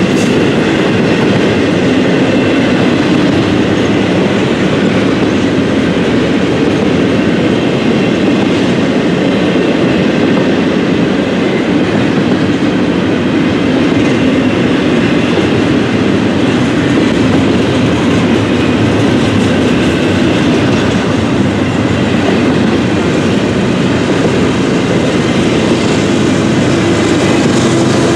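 Train passing at close range: railroad cars rolling by with a steady rumble of wheels on rail and a clickety-clack over the rail joints.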